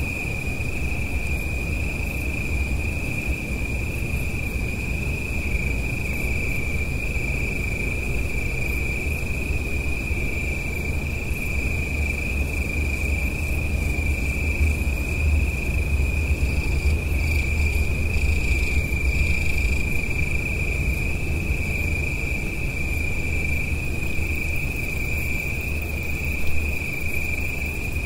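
Night insects trilling without a break on one steady high pitch, over the low rumble of road traffic in the distance, which swells a little midway. A brief thump near the end.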